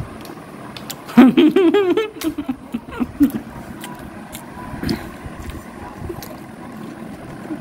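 A person's voice about a second in, warbling with a quickly wavering pitch for about a second. After it come scattered light clicks and clinks of steel utensils and dishes.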